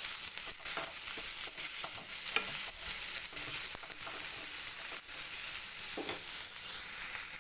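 Julienned carrots sizzling in hot oil in a frying pan, with a wooden spatula stirring them and scraping against the pan in short, irregular strokes.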